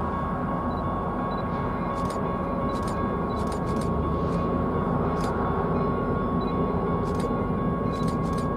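Distant diesel freight train approaching: a steady low rumble of the locomotives' engines, with a thin steady high tone and a few faint scattered clicks over it.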